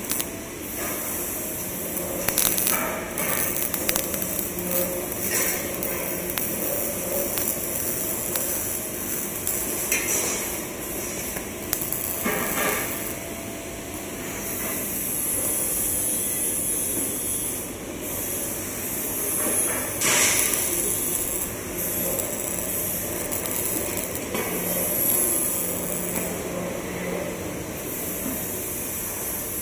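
Metal workshop noise: scattered clanks and knocks of steel over a steady hiss and hum of machinery.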